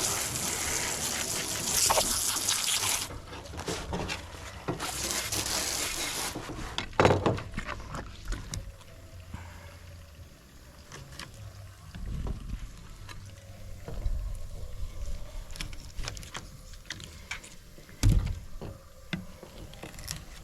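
Running water rinsing a freshly cut salmon fillet, in two spells of a few seconds each. After them come scattered small knocks and clicks.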